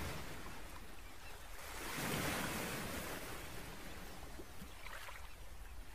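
Faint outdoor ambience: a soft, even wash of noise that swells about two seconds in and then slowly eases.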